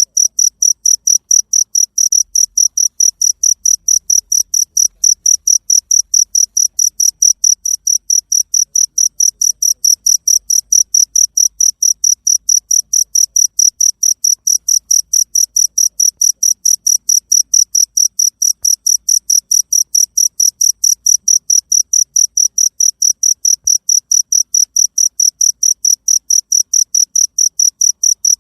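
Cricket chirping in a steady, unbroken rhythm of short, high-pitched chirps, about four a second.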